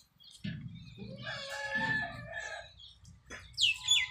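A rooster crowing: one long held call of about two seconds. Near the end come a few quick, falling bird chirps.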